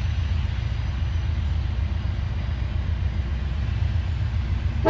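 Steady low rumble of an approaching freight train's diesel locomotives, a GE AC4400CW leading a four-unit lashup. The locomotive horn chord begins to sound at the very end.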